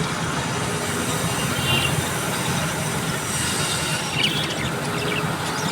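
Budgies chirping a few short times over a loud, steady rumbling noise.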